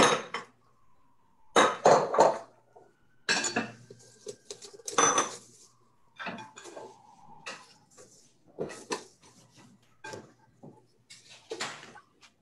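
Dishes and utensils clattering on a kitchen counter: several sharp knocks and clinks, the loudest in the first half, then lighter, quicker clinks.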